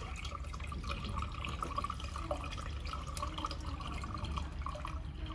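Water trickling and dripping into a water chiller's tank that has just been filled to its full level, over a steady low hum.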